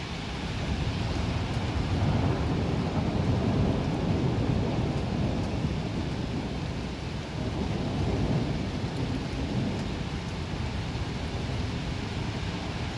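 Rolling thunder over steady heavy rain. The low rumble swells about a second in, peaks twice and eases off in the second half.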